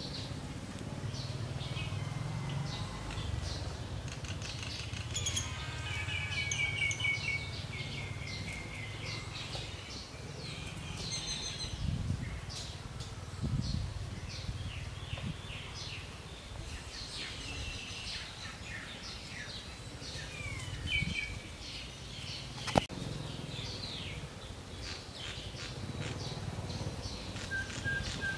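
Outdoor ambience of birds chirping, with repeated short chirps and a few quick trilled runs, over a steady low rumble. A single sharp click about two-thirds of the way through.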